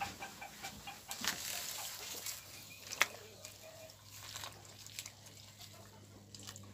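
Faint cooking sounds from a wok of greens boiling over a wood fire: scattered small clicks and taps from a metal ladle stirring in the wok, with a sharper knock about three seconds in and a soft hiss.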